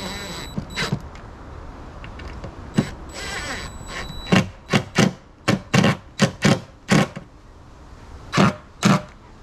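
Power drill running in two short spurts with a steady motor whine, driving the screws of a rod holder down. It is followed by about eleven loud, sharp knocks, most of them in quick succession about 4 to 7 s in and two more near the end.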